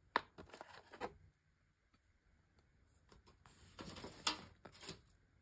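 Light clicks and plastic rustling as chocolate domes are taken from a plastic tray and set down on a ceramic plate, in two short bursts: one near the start and another about four seconds in.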